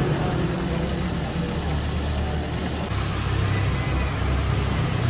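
Gas stove burner running with a steady low roar under a wok of eggs frying.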